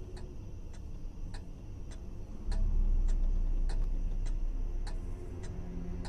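Grandfather clock ticking steadily, about three ticks every two seconds. A deep low rumble comes in about halfway through and is the loudest sound.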